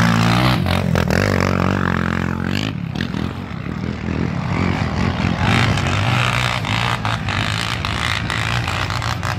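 Sport quad ATV engine revving hard as it climbs a dirt hill past the listener. The note steps in pitch about half a second in and again near three seconds, then turns rougher as the quad moves off up the hill.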